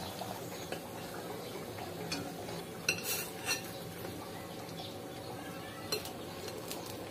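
A few light clinks of a metal slotted spoon and spatula against the wok and a ceramic plate as fried samosas are lifted out of the oil and set down. The clinks come about three seconds in and again near six seconds, over a low, steady background.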